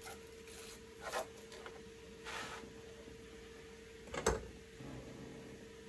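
Knife cutting an onion on a cutting board: a few separate taps of the blade on the board, the loudest about four seconds in, with a faint steady hum underneath.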